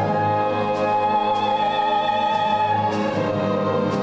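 Operatic soprano holding one long high note with vibrato over a symphony orchestra, the strings sustaining low notes beneath her. The held note gives way about three seconds in while the orchestra plays on.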